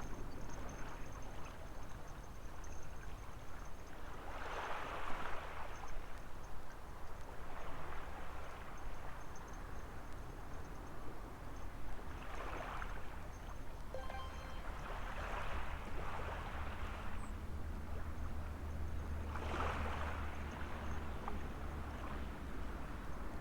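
Small waves breaking and washing up on a sandy beach, swelling and fading every few seconds over a low steady rumble.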